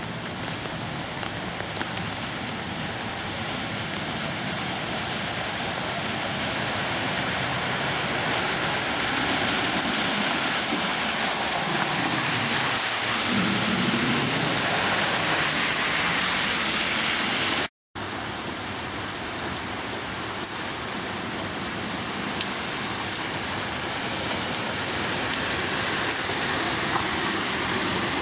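Heavy rain falling steadily on a flooded street. Around the middle a car drives through the floodwater, its tyre spray swelling and fading as it passes.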